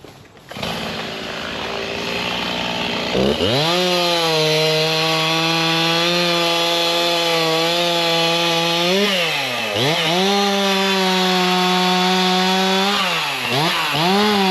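Two-stroke chainsaw revving up about three seconds in and running at a steady high pitch at full throttle. It eases off and picks back up twice, the second time near the end.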